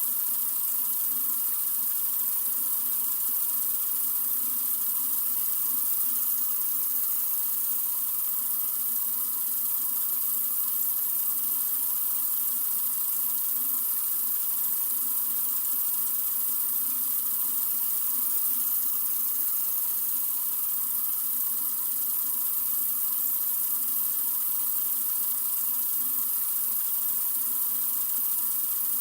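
Sink faucet running in a steady, unbroken stream, with a bright hiss.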